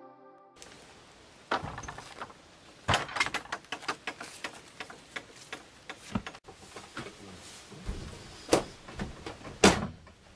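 A caravan door being handled, with clicks and knocks as it opens, then footsteps and knocks as a man steps up into the caravan and moves about inside. The loudest knock comes near the end.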